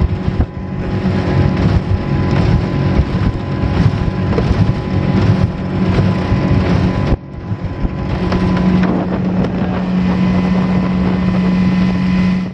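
Suzuki outboard motor driving a small skiff at speed, with wind buffeting the microphone and the rush of water along the hull. After a cut about seven seconds in, the engine's steady drone comes through more plainly.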